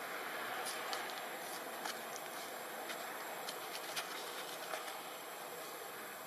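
Steady outdoor background hiss with a few faint clicks scattered through it.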